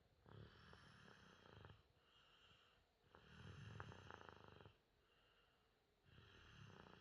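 Snoring in a steady rhythm: three long snores about three seconds apart, each about a second and a half long, with quieter breaths between them.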